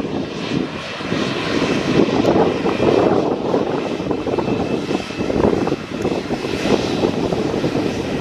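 Airbus A220-300's Pratt & Whitney PW1500G geared turbofans running at taxi power as the airliner rolls past: a rushing engine noise with a faint steady whine above it.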